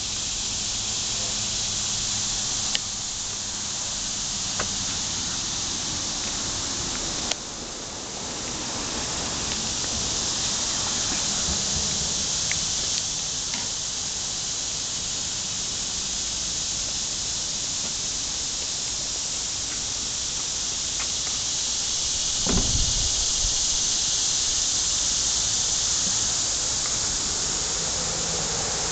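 Cicadas buzzing in a steady, high-pitched chorus, with a few faint clicks and a brief low rumble about three-quarters of the way through.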